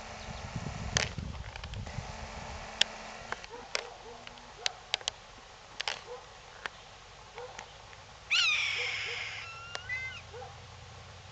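A young hawk calling: one loud, harsh scream that falls in pitch, a little over a second long, about eight seconds in, then a weaker, thinner falling call. It is a juvenile's attempt at the adult hawk's scream, and it sounds sad.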